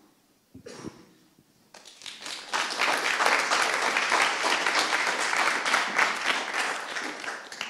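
Audience applauding: many hands clapping, building up about two seconds in, holding steady, then dying away near the end.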